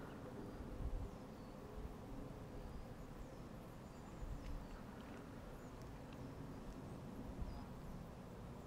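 Faint bird chirps, short and scattered, over a low steady rumble.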